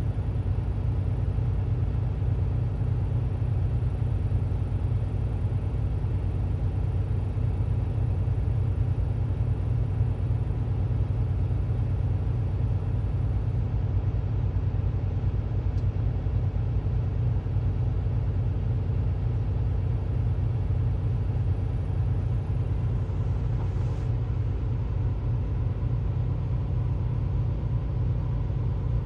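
An engine idling with a deep, steady rumble that does not change.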